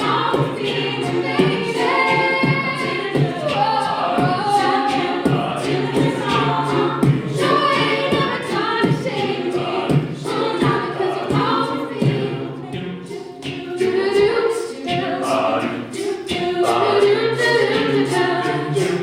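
A cappella group singing in close harmony, with vocal percussion keeping a steady beat.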